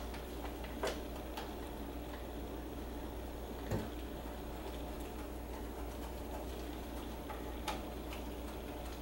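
A few scattered light clicks and taps of small metal brake-line fittings (banjo bolt and crush washers) being handled, over a steady low hum.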